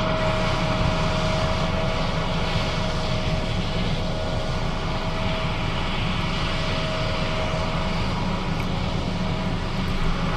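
John Deere S660 combine running steadily while harvesting soybeans: a heavy, even machinery drone with a steady whine running through it.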